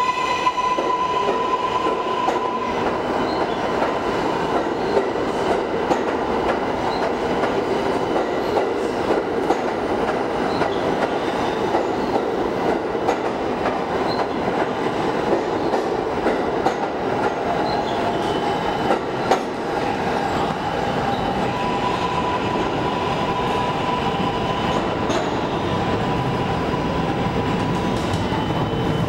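Kawasaki R143 subway train pulling out and running past alongside the platform, its wheels clacking over the rail joints. A steady high tone rings at the start, dies away after a couple of seconds and returns later, and a low rumble grows near the end.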